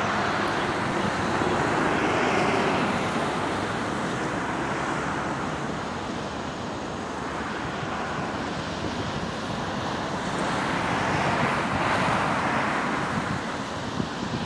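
Airbus A320-214 twin CFM56-5B turbofan engines at takeoff thrust during the takeoff roll, lift-off and initial climb: a steady jet rushing noise that swells about two seconds in and again about twelve seconds in.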